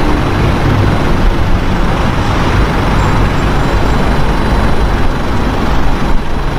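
Steady rumble of vehicle engines and traffic.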